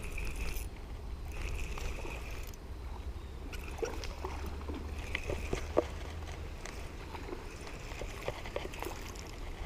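A hooked fish being reeled in, with small splashes and sloshing water and a faint reel whir that comes and goes, over steady wind rumble on the microphone.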